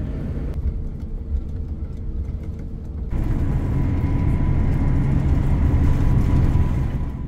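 Cabin noise of a Boeing 777 on its takeoff run: a steady, heavy low rumble from the jet engines and the runway that grows louder about three seconds in, with a faint steady whine above it.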